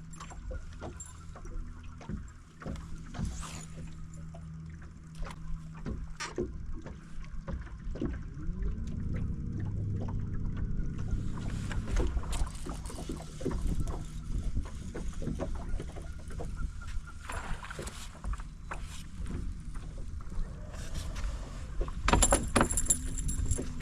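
Sounds aboard a fishing boat: a low steady motor hum with scattered clicks and knocks, the knocks louder near the end.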